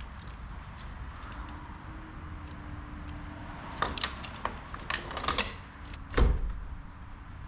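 A run of sharp clicks and rattles of things being handled, then a single heavy thump about six seconds in, over a steady low rumble.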